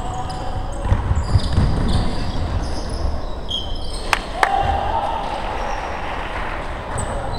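Basketball game on a wooden gym court: sneakers squeaking on the hardwood in short chirps as players run, and the ball thumping as it is dribbled, with two sharp knocks a little past halfway.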